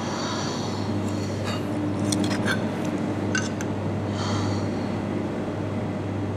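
Pieces of a broken plate clinking and scraping as they are gathered from a wooden floor by hand: a few sharp clinks in the middle, with brief brushing sounds near the start and about four seconds in, over a steady low hum.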